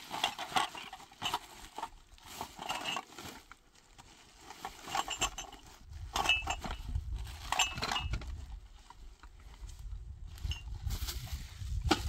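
Rustling and crinkling of a woven plastic sack and plastic bags being handled and packed, in repeated short bursts, with light clinks. A low rumble joins about halfway through.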